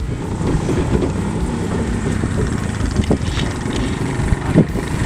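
A vehicle running steadily, with wind buffeting the microphone.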